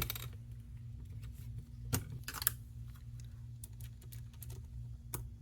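Light plastic clicks and taps as a laptop's palmrest housing and small screws are handled and set in place at the hinges. There is a sharp click at the start, two more about two seconds in, and one near the end, over a steady low hum.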